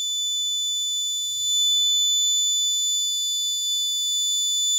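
Piezo buzzer alarm on an Arduino vehicle anti-collision board sounding one steady, high-pitched tone: the collision alarm, which the board gives when its ultrasonic sensor finds an obstacle too near.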